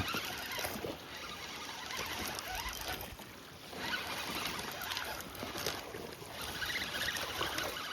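Steady rushing noise of wind and river water, rising and falling in loudness.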